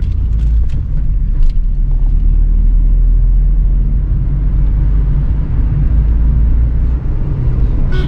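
Car engine and tyre noise heard from inside the cabin while driving on a hill road: a steady low rumble, with a few light knocks in the first couple of seconds.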